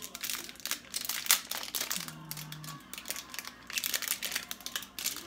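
Small plastic packet crinkling as it is handled between the fingers, in irregular bursts of rustling.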